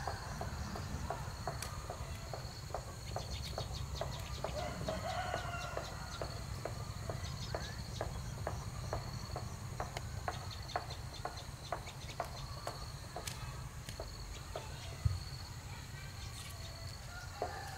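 Farmyard sounds: a steady high drone of insects with faint chicken clucks, over a low steady rumble. A run of light clicks or snaps, about two a second, goes on through the middle.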